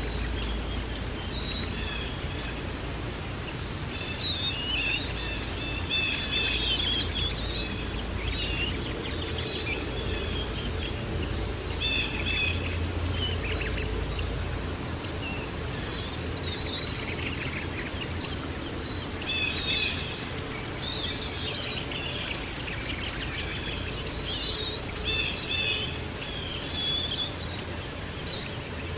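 Many small songbirds chirping and trilling, with dense overlapping calls throughout, over a steady background hiss. A low rumble underneath fades out about halfway through.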